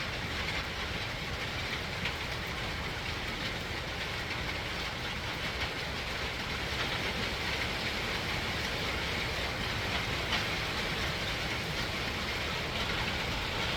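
Steady heavy rain in a thunderstorm: an even hiss with a low rumble underneath.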